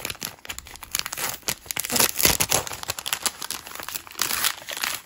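Clear plastic packaging sleeve crinkling and rustling as it is handled and opened, a rapid irregular crackle that is loudest about two seconds in.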